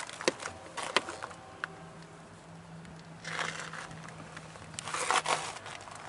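Close handling noises: a few light clicks in the first second, then two brief rustling scrapes in the second half, over a faint steady low hum.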